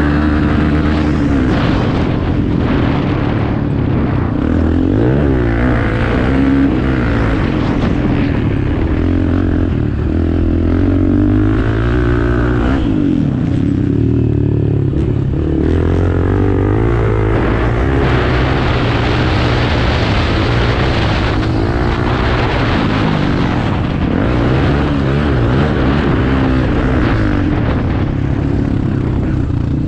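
Off-road motorcycle engines running and revving, the pitch rising and falling again and again as the bikes accelerate and ease off.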